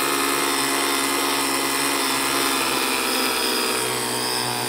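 Ryobi 40 V brushless battery pressure washer running steadily: the hum of its motor and pump under the hiss of the water spray, while it washes mud out of a radiator.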